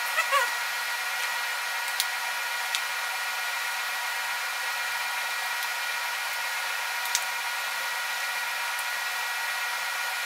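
A steady, even hum or whir with a constant whine in it, like a fan or small motor running. Three or four faint clicks sound through it, one about two seconds in and another near seven seconds.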